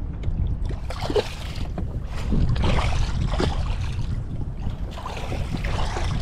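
A hooked queenfish thrashing at the surface beside a kayak, splashing several times, over a steady wind rumble on the microphone.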